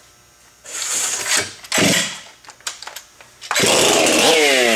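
Ported Stihl MS 661 C-M two-stroke chainsaw with an open 'buckshot' muffler being pull-started: a couple of short pulls, then the engine catches about three and a half seconds in and runs loud, its revs falling just after it fires.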